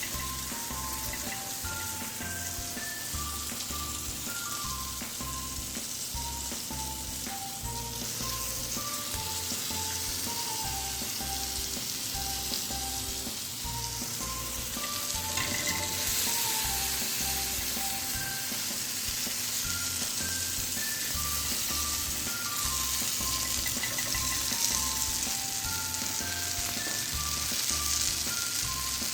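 Masala-coated boiled eggs sizzling in oil on a hot dosa tawa: a steady frying hiss that grows a little louder around the middle.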